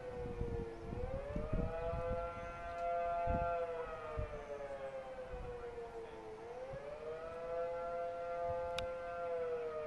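Outdoor tornado warning siren wailing. One steady tone with overtones slowly sags in pitch, then climbs back up, twice. A low rumbling of wind runs under it.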